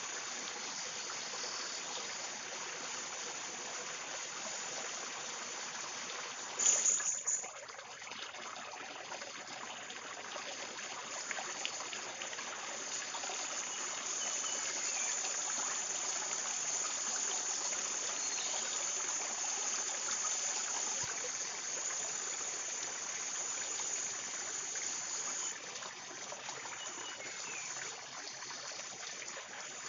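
Steady rushing of a forest stream, with a brief louder hiss about seven seconds in.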